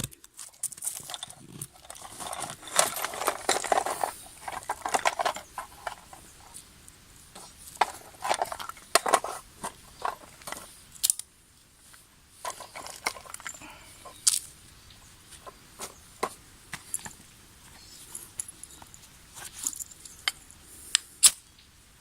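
Knife blade scraping in short runs of strokes, with rustling and scattered sharp clicks as fire-lighting materials are handled.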